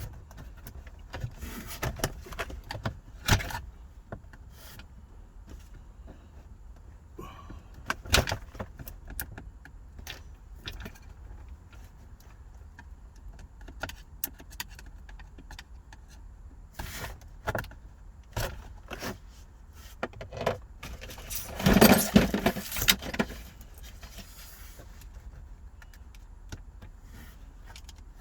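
Scattered metallic clicks, knocks and rattles of a flat-head screwdriver prying off the clamps of a 2009 Infiniti G37's gear shifter assembly and working it loose, with a louder rattling clatter lasting about a second and a half around 22 seconds in.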